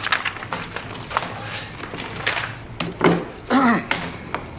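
Light taps and clicks of small objects being handled, with a short vocal sound with falling pitch about three and a half seconds in.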